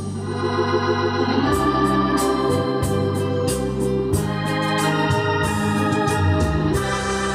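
Music played through a JVC AX-11 stereo integrated amplifier and its speakers: held chords that change about every second, with a light percussive tick over the middle of the stretch.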